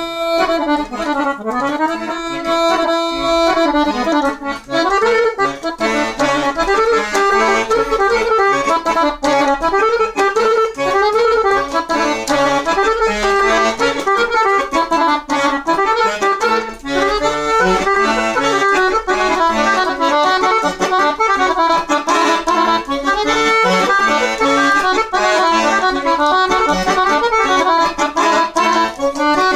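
Solo chromatic button accordion playing: a few held chords that swell and fade in the first seconds, then a fast running melody over chords for the rest.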